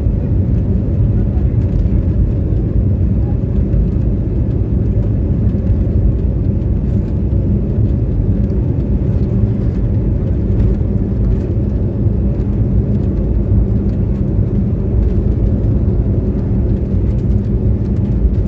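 Jet airliner's engines and wheels on its takeoff roll, heard inside the passenger cabin: a loud, steady low rumble.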